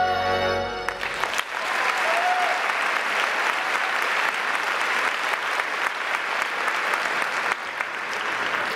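Recorded big-band music ends abruptly about a second in, and an audience breaks into steady applause that runs on as the dancers leave the stage.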